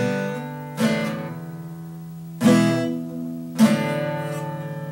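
Acoustic guitar strummed in four single chords about a second apart, each left to ring out and fade before the next.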